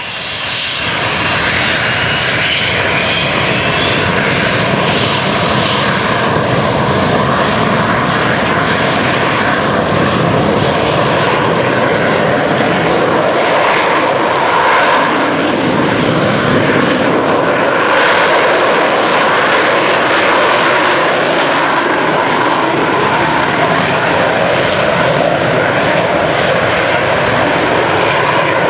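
Aircraft engine noise, a loud, steady, dense rush of sound that holds throughout, with a faint high whine.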